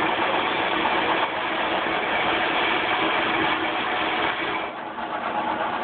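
Swift espresso grinder running, grinding coffee beans from the regular hopper into the portafilter with a steady mechanical whir; the sound dips and changes a little near the end.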